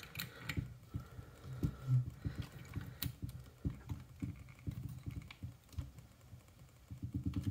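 Small flat wrench clicking and scraping on a propeller's nylock nut as it is tightened down on a drone motor, with irregular light ticks and knocks and a faster run of clicks near the end.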